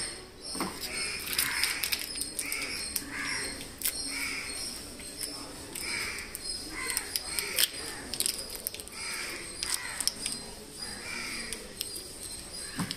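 Crows cawing again and again, about one call a second, with scattered light clicks and taps.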